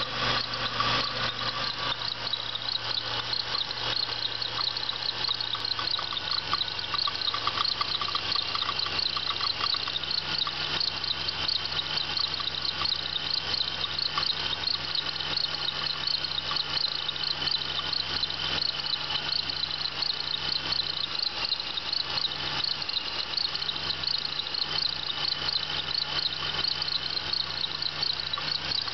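Supercharged 3800 V6 of a 1996 Pontiac Bonneville SSEi idling, with a steady high chirping squeal from a bad idler pulley in the accessory belt drive.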